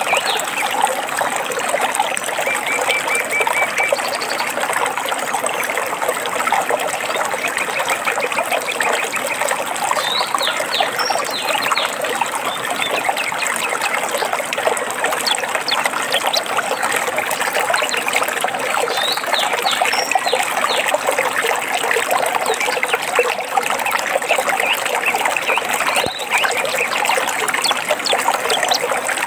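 A small stream burbling and trickling steadily, with birds chirping now and then over it, including a short trill a few seconds in.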